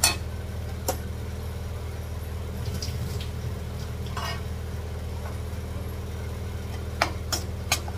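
A steel spoon knocking against a kadhai as gravy is stirred: a sharp clink at the start, another about a second in, and three quick ones near the end, over a steady low hum.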